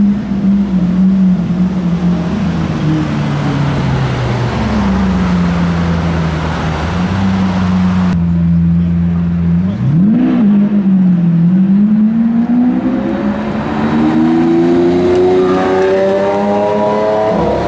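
Lamborghini Aventador S's naturally aspirated V12 running loudly at a steady, low engine speed. About ten seconds in there is one quick blip of the throttle, and then the engine speed climbs steadily over the last several seconds as the car accelerates.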